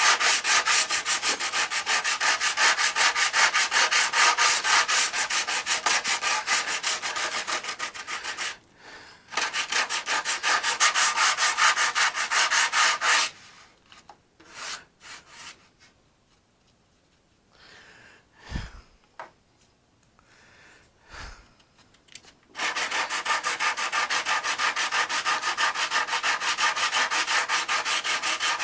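Coarse 40-grit sandpaper rubbed back and forth in quick, steady strokes over a cured filler fillet at the wing root of a balsa model airplane, knocking down the high spots. The sanding stops for several seconds midway, with a couple of soft knocks, then resumes.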